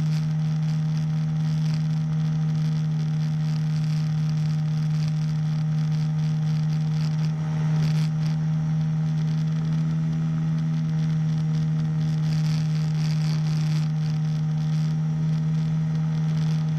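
Small engine of a powered hang-glider harness running at a steady, constant throttle: an even drone with no change in pitch, over a steady hiss.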